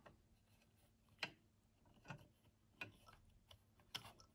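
Mostly near silence, broken by about four faint, short clicks and taps as a rubber O-ring is stretched by hand over the plastic housing of a centrifugal aquarium pump.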